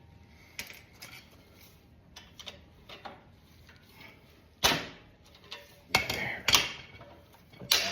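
Hand tools clicking and knocking against metal motorcycle engine parts: a few light taps, then four sharper knocks in the second half.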